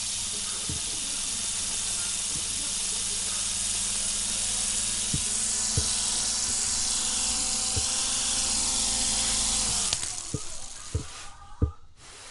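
Kyosho EGG Neon Messenger mini toy helicopter's small electric motors and rotors whirring with a steady hum and hiss as it hovers. About ten seconds in the motors wind down and stop as it lands, followed by a few light knocks.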